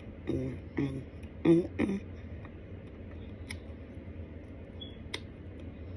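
A few short muffled vocal sounds in the first two seconds, then a low steady hum broken by a couple of sharp clicks, the second louder, as starch is scooped from a plastic jar with a spoon and eaten.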